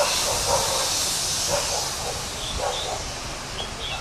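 Loud, even hissing rush of open-air roadside noise that eases off a little after a couple of seconds, with a few faint muffled sounds underneath.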